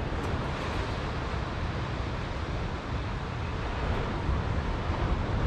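Wind buffeting the microphone outdoors: a steady, uneven low rumble under an even hiss.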